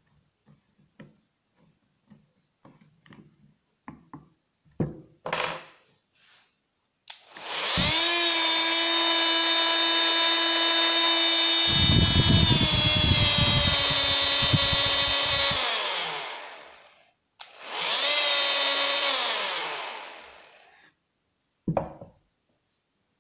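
Bosch PMF 220 CE oscillating multi-tool switched on and run in the air twice, about nine seconds and then three seconds, with a steady buzzing whine that steps down in pitch partway through the first run and winds down as each run ends. Light clicks of the blade being tightened with a hex key come before the runs, and a knock near the end as the tool is set down on the wooden bench.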